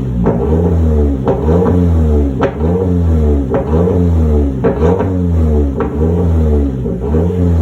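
Toyota Camry XSE (8th generation) engine revved in quick blips, about one a second. Each drop in revs brings a sharp exhaust pop or crackle.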